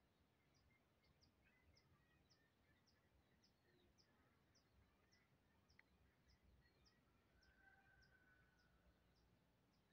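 Near silence with a faint high chirp repeated evenly about twice a second from a small animal, and a faint whistled call near the end.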